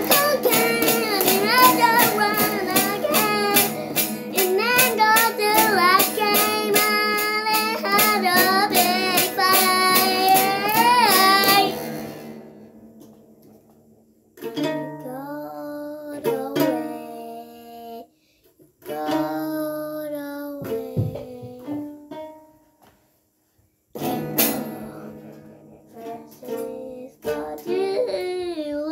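Music: a strummed plucked-string instrument with a singing voice. After about twelve seconds the strumming stops, and the singing goes on in short phrases with brief pauses between them.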